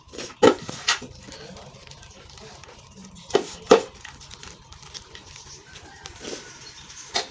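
Gym chalk crunching: two pairs of sharp crunches, one pair about half a second in and another about three and a half seconds in, then a single crunch near the end.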